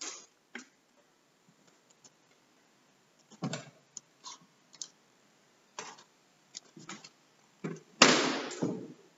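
Scattered light knocks and clicks of people moving about and handling things, with a louder rustling burst lasting about a second near the end, close to the microphone.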